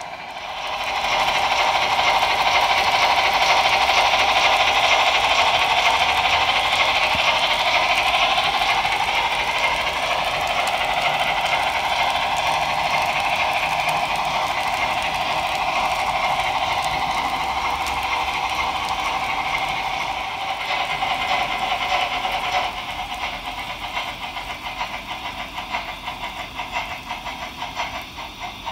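HO-scale model freight train running on metal track: its wheels roll and rattle steadily. About three-quarters of the way through the sound eases into lighter, uneven clicking.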